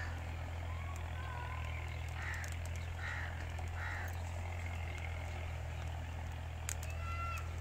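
A steady low hum, like an engine running some way off, with birds calling: three short calls a few seconds in and a two-note whistle near the end. A few sharp clicks come through as the wood fire is being lit under the pot.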